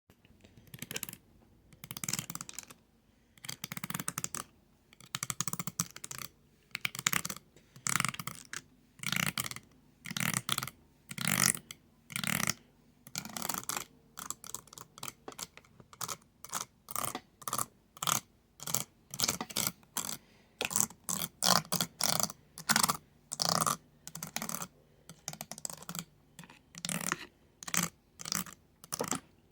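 Fast, close-up ASMR tapping and clicking of chopsticks and fingernails, in quick bursts of sharp clicks. The bursts come about once a second at first, then grow shorter and faster, about two a second, from halfway on.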